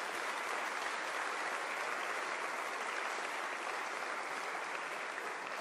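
Steady applause from the members of parliament seated in the chamber, many hands clapping at once.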